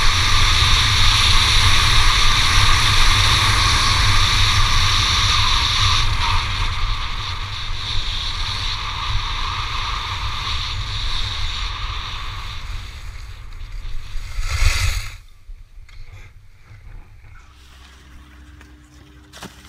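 Wind rushing over the microphone during a fast run down a ski slope, with the steady hiss of edges sliding on hard-packed snow. It swells briefly and then cuts off about fifteen seconds in, leaving only quiet outdoor background.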